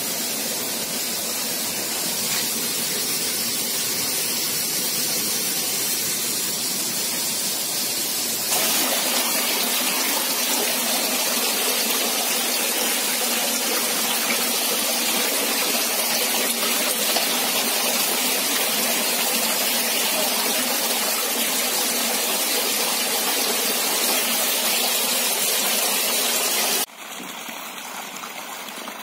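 Water jetting from an inflow pipe into trout-rearing tanks: a steady rushing splash. It turns louder and brighter about nine seconds in and drops to a quieter splashing near the end.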